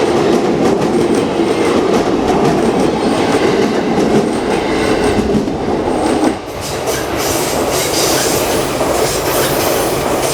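Electric train passing at close range, its wheels running loud and steady on the rails. About six seconds in, the deep rumble drops away suddenly and a higher hiss carries on.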